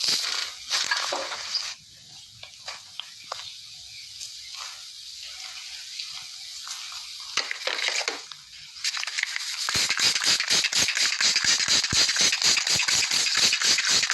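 Close-miked ASMR barber head massage: hands rubbing and pulling through a client's hair with rustling and scattered crackles, then, about ten seconds in, a fast, even run of crisp strikes at about five a second.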